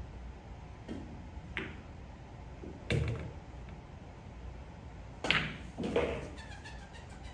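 Sharp clacks and knocks of pool balls after a break-and-run style shot on a pool table: five separate hits spread out, the loudest about three seconds in and again at about five and six seconds.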